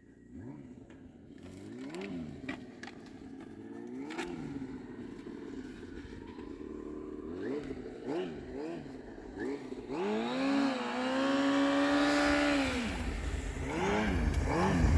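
An off-road vehicle's engine revving on a steep hill climb: short rising and falling revs, then held at high revs for about three seconds, with the engine growing louder toward the end.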